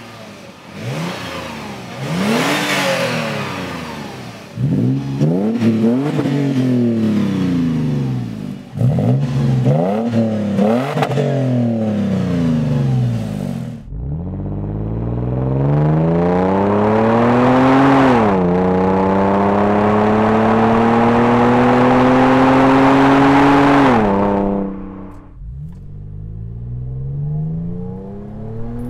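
Toyota 4Runner's 4.0-litre V6 exhaust, revved several times, each rev rising and falling in pitch, the opening revs on the factory exhaust. Then, through a RedRock cat-back with a straight-through muffler, the engine pulls hard under acceleration, changes gear with a drop in pitch, climbs again and lifts off. Near the end a quieter engine sound is heard inside the cabin.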